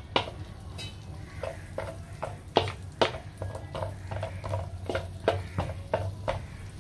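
Wooden spatula stirring cashew nuts around a nonstick pan, clicking and scraping a few times a second, while the melted butter sizzles underneath as the nuts roast.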